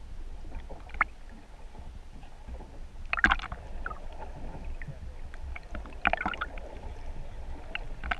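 Muffled water noise picked up by a GoPro in its waterproof housing underwater: a steady low rumble with scattered clicks. Short louder bursts of noise come about a second in, about three seconds in, about six seconds in and near the end.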